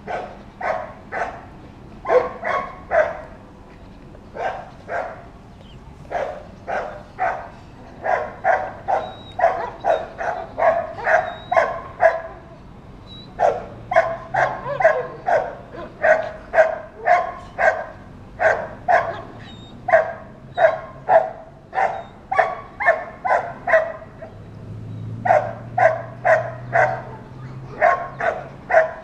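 A dog barking over and over, about two barks a second, in long runs broken by short pauses.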